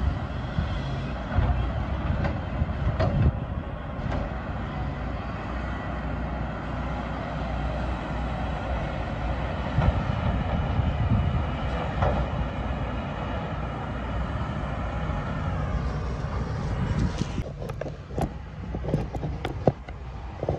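Heavy diesel engines of a loaded log truck and a knuckleboom log loader running steadily, with a few sharp knocks along the way. Near the end the engine noise drops and a handful of sharp clicks follow.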